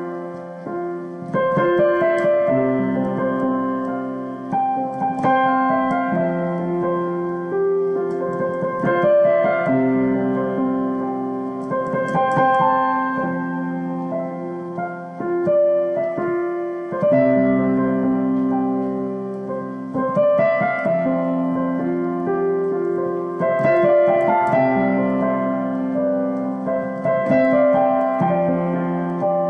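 Solo piano playing slow, sustained chords that change every second or two, with no singing.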